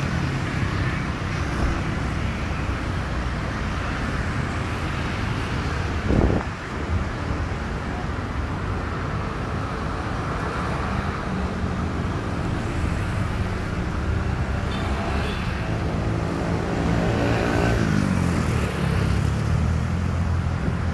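A car moving slowly through a drive-thru lane, its engine running at low speed over a steady outdoor traffic rumble. There is a single loud thump about six seconds in.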